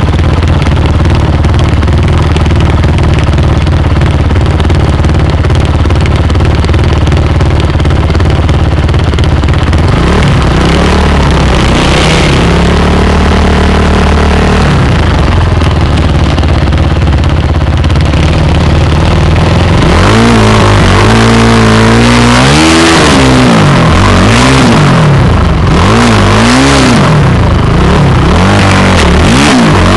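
Dirt bike engine running loud and close: a steady idle, then revs rising and falling from about ten seconds in, and repeated revving up and down through the last ten seconds.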